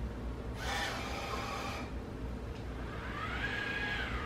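Braava Jet m6 robot mop at work: a hiss lasting about a second starts about half a second in, typical of its jet spraying cleaning fluid ahead of the pad. Near the end its motors whine, rising and then falling in pitch as it manoeuvres.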